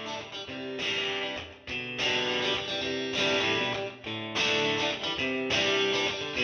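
Background music: strummed guitar chords that change every second or so.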